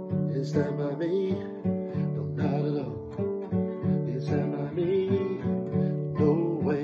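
Acoustic guitar strummed in a steady rhythm, about two strums a second, with a voice singing over parts of it.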